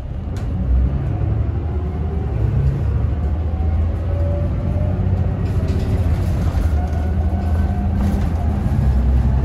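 Isuzu Erga city bus under way: its diesel engine and drivetrain give a steady low drone, with faint whines gliding up and down. The sound grows louder about half a second in, then holds.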